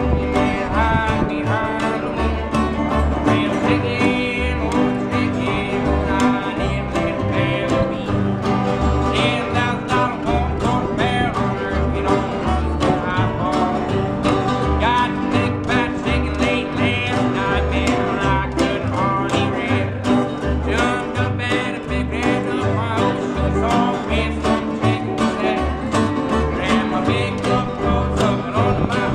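Acoustic string band playing an old-time tune: fiddle and lap-style resonator guitar carrying the melody over two strummed acoustic guitars, with an upright double bass keeping a steady beat.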